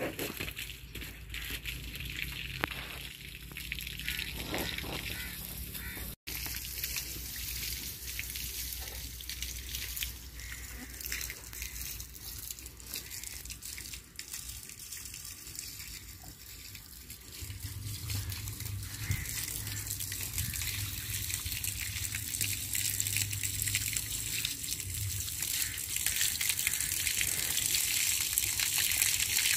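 Water running and splashing, a steady hiss that grows louder toward the end, with a brief break about six seconds in.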